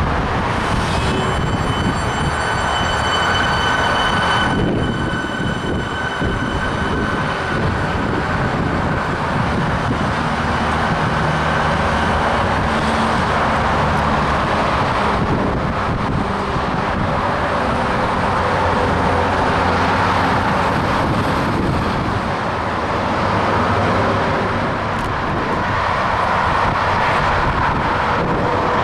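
Electric suburban train pulling out of the platform with a steady high whine over the rolling rumble, then a second suburban electric train running in along the same line.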